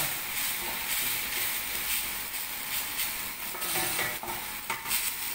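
Food sizzling as it is sautéed in a stainless steel pan and stirred with a spatula, with a couple of sharper scrapes near the end.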